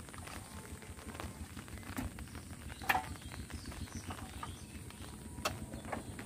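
Scattered light knocks and clicks over a low rumble, the sharpest about two, three and five and a half seconds in: a man moving about on a small wooden boat and handling a bamboo pole.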